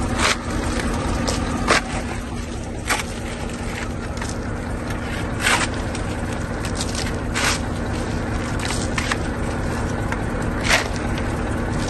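Steel shovel blade scraping and stabbing into gravel and packed soil, about seven sharp strikes a second or two apart, over a truck's diesel engine running steadily.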